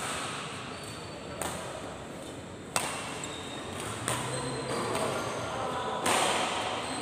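Sharp cracks of badminton rackets striking a shuttlecock, four of them at uneven intervals, the loudest about three seconds in, over background voices.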